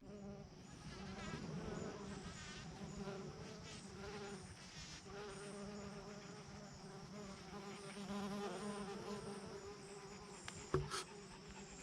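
A flying insect buzzing steadily, its pitch wavering a little, with a short knock near the end.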